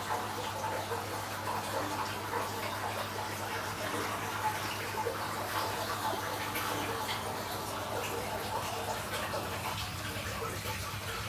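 Aquarium filter return churning and bubbling at the water surface, with fine crackling of bubbles over a steady low hum from the pump.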